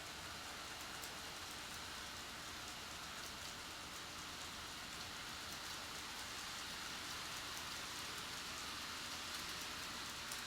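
N-gauge model Shinkansen running on the track: a steady hiss from the wheels and motor with faint fine clicking, growing slightly louder near the end.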